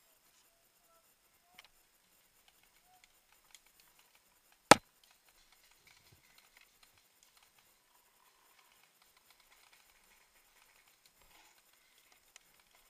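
A single sharp shot from a paintball marker about five seconds in, over faint rustling of undergrowth and gear.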